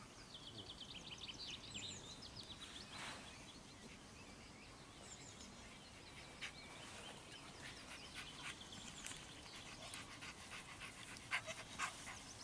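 A Rottweiler panting, faintly, with high chirps in the first two seconds.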